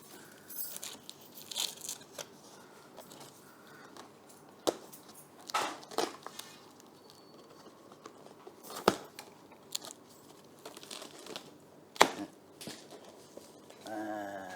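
The packaging of a washing machine's shipping box being torn open: tearing and crinkling with several sharp snaps, the loudest near the end.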